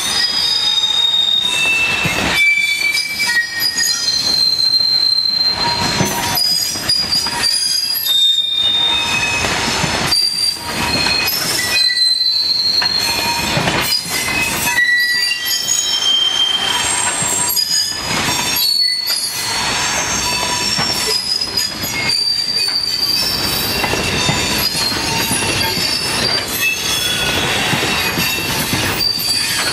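Freight train bogie hopper wagons rolling past close by: wheel flanges squealing against the rails in many short, high-pitched tones, over the rumble and irregular knocking of wheels on the track.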